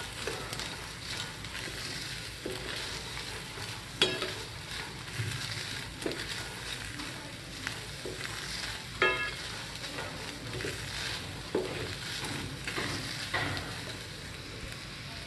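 A wooden spatula stirs and scrapes sweet corn kernels around a hot nonstick pan as they dry-roast, with a steady sizzle and many small clicks of kernels against the pan. There are occasional sharper knocks, the loudest about four seconds in and again near nine seconds.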